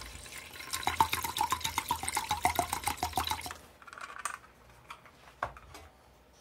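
Chicken broth pouring from a carton spout into the stainless steel inner pot of an Instant Pot, splashing with quick, even glugs; the pour stops about three and a half seconds in. A few small drips and faint knocks follow.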